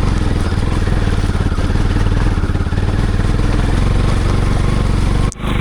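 Motorcycle engine running steadily under way, with a fast even pulse of its firing. There is a brief sudden dropout near the end.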